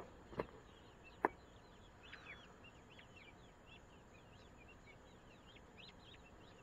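Young guinea fowl keets peeping, a steady scatter of short, high chirps that drop in pitch. Three sharp clicks come in the first second and a half.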